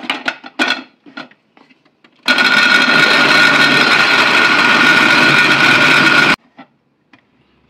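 Electric blender running for about four seconds, grinding blanched spinach with green chillies, with a steady motor whine; it starts after a few clattering knocks and cuts off suddenly.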